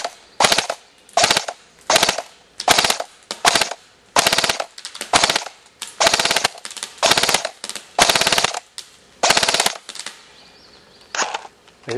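Code-8 H4A1 PTW airsoft electric rifle firing short full-auto bursts of BBs in quick succession, about two bursts a second. They stop about ten seconds in, and one last short burst comes near the end.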